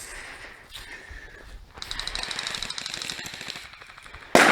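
Airsoft electric gun firing a sustained full-auto burst of rapid, evenly spaced clicks, with quieter fire before it. A sudden loud bang-like burst of noise comes near the end.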